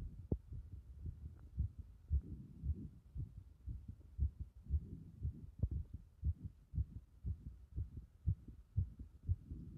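Human heartbeat picked up by a microphone pressed against the chest: muffled low thumps about two a second.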